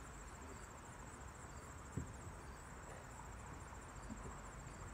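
Insects chirping steadily in a high, pulsing trill, with one low thump about two seconds in.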